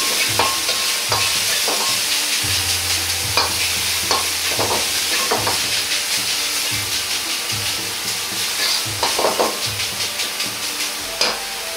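Ground pork sizzling in oil in a wok, stirred and spread with a metal ladle, with repeated scrapes and clinks of the ladle against the wok. The meat is being fried hard so that its fat runs out.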